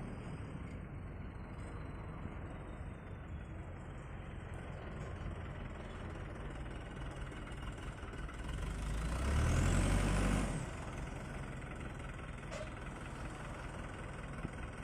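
Diesel engine of a Hino 300 dump truck running steadily, growing louder for about two seconds around nine seconds in, then settling back.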